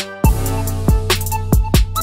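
Intro music: a beat with a heavy kick drum and deep bass comes in about a quarter of a second in, with higher synth notes over it.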